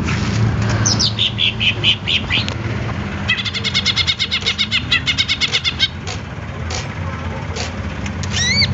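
Caged green leafbird (cucak ijo) singing. A few sweeping whistles and chips come first, then a fast run of repeated notes for a couple of seconds, and rising whistles near the end. A steady low hum runs underneath.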